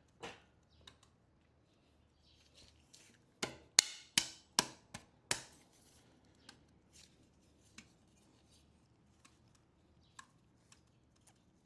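Metal tools and bolts clinking and knocking as hardware is handled while mounting an engine on an engine stand. About six sharp clanks, each ringing briefly, come in quick succession about three and a half seconds in, with scattered light clicks before and after.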